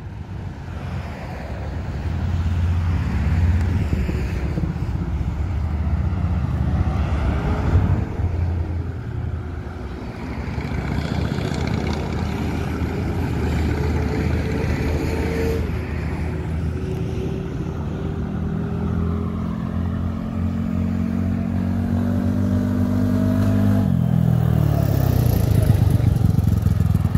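Predator 400cc four-seat UTV's engine running as it is driven, its pitch climbing slowly as it accelerates and dropping suddenly when the throttle comes off, around the middle and again about three-quarters through. It grows louder near the end as the UTV comes close.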